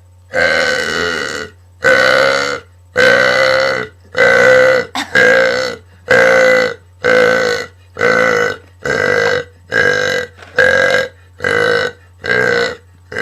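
A young woman burping over and over: a rapid run of about a dozen long, loud burps, roughly one a second.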